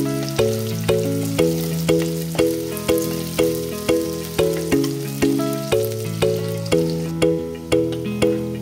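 Background music of evenly paced notes, about two a second, each fading away, over the sizzle of shallots, garlic and curry leaves frying in oil in a clay pot.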